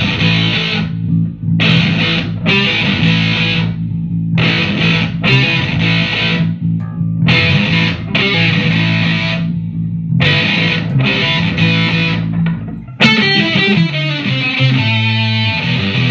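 Distorted electric guitar playing a chopped, stop-start rhythm riff over an electric bass guitar line. About 13 seconds in the guitar comes in sharply and switches to a running figure of separate notes.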